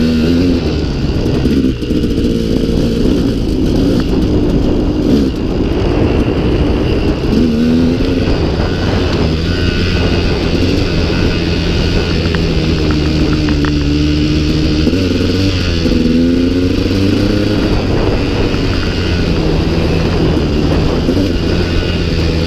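2016 KTM 200 XC-W's two-stroke single-cylinder engine pulling the bike along a dirt trail. The revs rise and fall with the throttle, with clear climbs in pitch near the start, about eight seconds in and again around fifteen seconds in.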